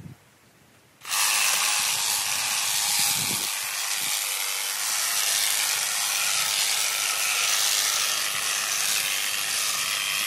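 Honda HHH 36 AXB cordless hedge trimmer starting up about a second in and then running steadily, its reciprocating blades cutting into a dense hedge with a loud, high, hissy sound.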